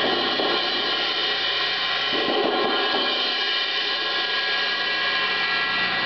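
Paiste 602 24-inch Paper Thin cymbal played in a sustained roll: a steady, dense wash of many ringing tones that holds at an even level without separate strikes standing out.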